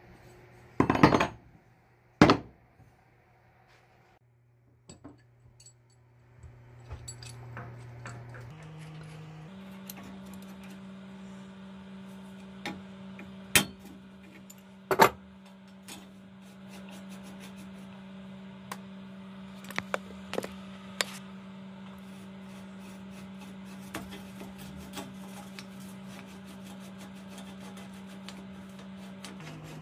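Sharp metal clanks and clinks from handling a rusty crosscut saw blade and its handle hardware, with a pipe wrench on the handle nut: two loud knocks in the first few seconds and two more about halfway through, with lighter ones after. A steady low hum runs beneath.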